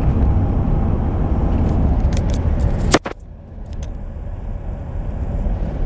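Road and engine noise inside a moving car's cabin, a steady rumble. About halfway through there is a sharp click and the noise drops suddenly, then comes back quieter and slowly builds again.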